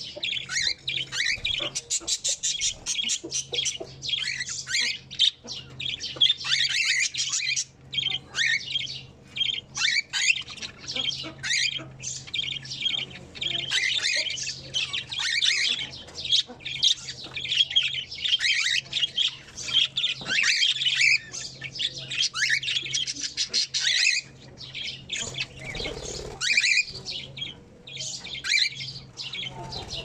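Aviary cockatiels and budgerigars calling at once: a dense, unbroken chatter of squawks and chirps.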